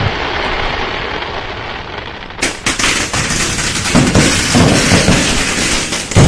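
Firecrackers going off: the fading noise of an earlier burst, then from about two seconds in a dense, rapid crackle of many small pops, like a string of firecrackers, with a few heavier thumps mixed in and a loud bang near the end.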